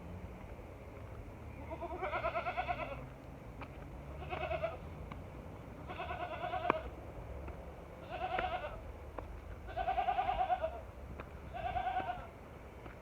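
Young goat bleating, six wavering bleats each lasting under a second, spaced roughly two seconds apart.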